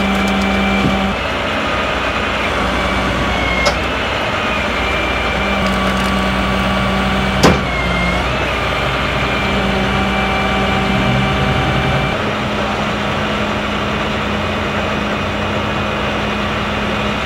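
Flatbed tow truck's engine running steadily, its hum dropping out and returning in stretches. A sharp knock about seven and a half seconds in, and a lighter click a few seconds earlier.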